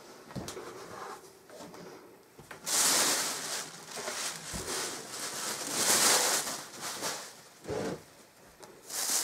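Thin plastic bag rustling and crinkling in a few loud bursts as it is handled, with a few light bumps in between.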